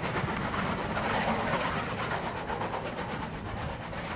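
Steam locomotive working a passenger train away, its exhaust beating in a quick, steady rhythm of several beats a second.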